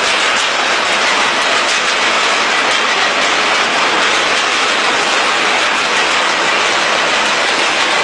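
Machinery of a twin-screw extruder snack production line running: a steady, even noise with faint scattered ticks.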